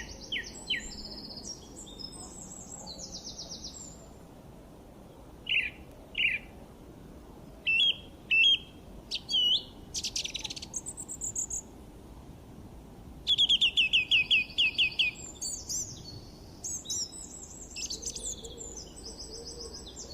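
Birds chirping and singing: scattered short high calls and quick trills of several kinds, with a fast run of repeated notes a little past the middle, over a low steady background hiss.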